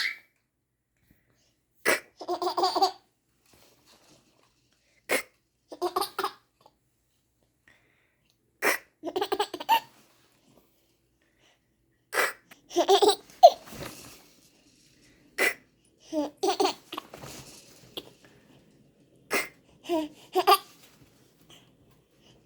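An 8-month-old baby giggling in short bursts, set off each time by a brief sharp noise the mother makes. This happens about six times, roughly every three to four seconds.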